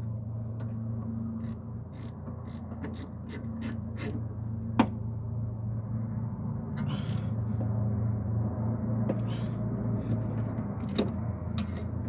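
Irregular metallic clicks and knocks of tools being handled, one sharper knock about five seconds in, over a steady low hum.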